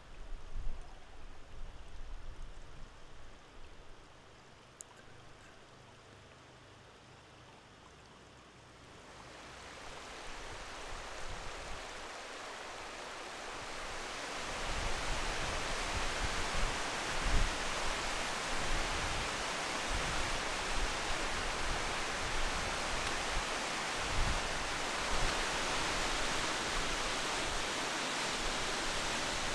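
Rushing mountain water from a stream and waterfall, a steady hiss that swells in about nine seconds in and holds loud from about fourteen seconds on. Before that there is a quieter stretch with a few low rumbles.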